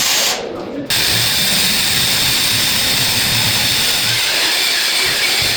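A power tool running steadily, with a short break about half a second in.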